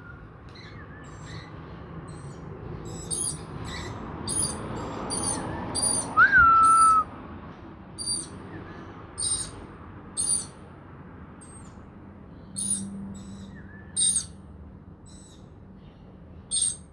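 Wild lorikeets giving repeated short, high-pitched screeching calls. A single louder whistled note, sliding down slightly, sounds about six seconds in.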